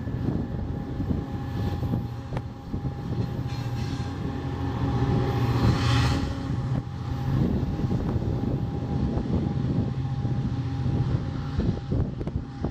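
Diesel passenger locomotive running steadily as the train pulls away, a low drone with a steady higher whine over it. A brief rushing noise swells and fades about six seconds in.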